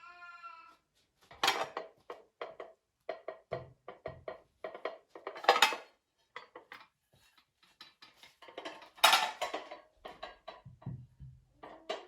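Dishes and cutlery being handled: a string of short, irregular clinks and knocks of ceramic and metal kitchenware, after a brief pitched tone at the start.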